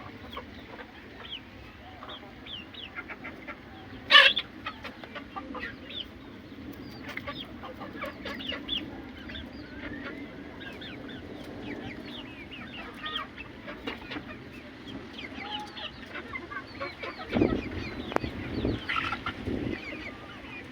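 Aseel chickens clucking, with many short chirping calls scattered throughout. A sharp, loud sound stands out about four seconds in, and some low thumps come near the end.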